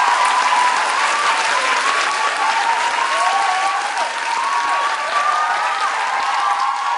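Live audience applauding, with cheers and whoops rising and falling over the clapping.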